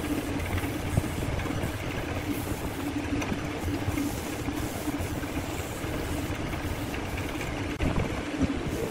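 Wood lathe running steadily with a steady motor hum, spinning a turned wooden vase while a rag held against it applies finish. A few louder knocks come near the end.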